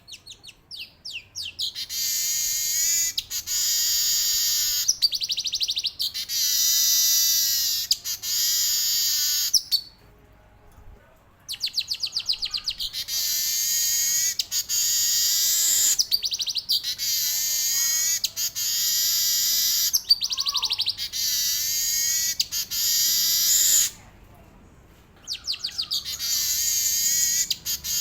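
Male weaver (manyar) singing in repeated bouts. Each bout opens with a run of quick ticks that speed up into a long, high, dense trill lasting several seconds, and the song breaks off briefly twice before starting again.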